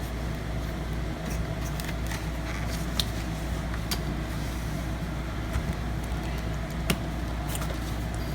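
A steady low hum, with a few faint sharp clicks about three, four and seven seconds in. The clicks are small handling sounds of a screwdriver and a laptop's plastic bottom case.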